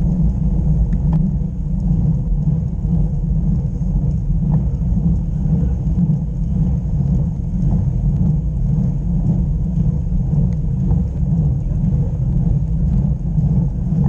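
Wind buffeting the microphone of a camera on a moving road bike, a steady deep rumble, with a few faint clicks over it.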